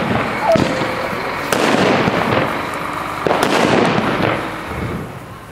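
Mini Toffee butterfly firecrackers (Original Fireworks) going off on pavement, one after another: each starts suddenly and gives a second or two of loud fizzing noise before dying away, with new ones setting off about a second and a half in and again about three seconds in.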